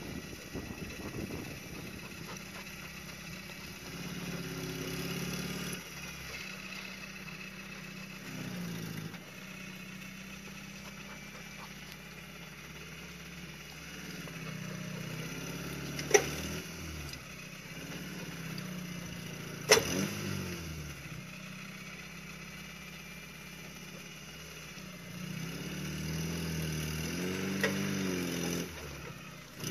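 Suzuki Samurai's small four-cylinder engine working a rocky climb, revving up in short pushes and dropping back again and again. Two sharp knocks, a few seconds apart about halfway through.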